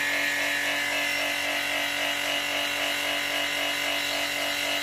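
Vacuum pump of an OCA laminating machine running with a steady, even drone and hum while the machine holds its press plate down in the lamination stage.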